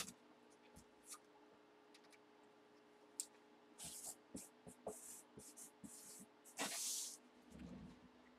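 Writing on a cardboard box with a marker: a run of short, faint scratchy strokes, the longest about two-thirds of the way in. A light knock comes at the very start.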